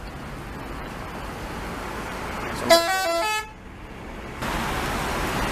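A tour bus's multi-tone "telolet" horn plays a quick run of stepping notes for under a second, about three seconds in. Underneath is the steady noise of bus engines and traffic.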